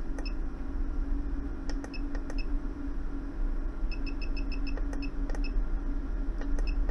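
Short high electronic beeps from a Hikari HK915 desoldering station as its temperature setting is dialled down, one per step. They come singly at first, then about six in quick succession about four seconds in, over a steady low hum.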